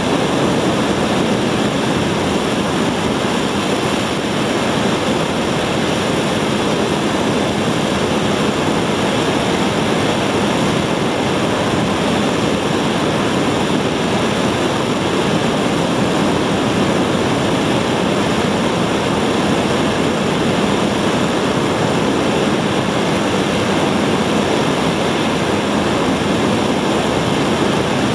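A 75-tonne kerosene and liquid-oxygen rocket engine for the Korean launch vehicle firing on a ground test stand, heard from a distance as a loud, steady rushing noise that holds constant without change.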